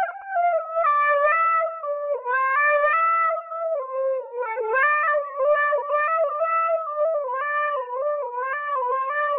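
Husky howling into a handheld karaoke microphone: one long, unbroken howl that starts a little higher, then settles and wavers up and down in small steps, almost like a sung tune.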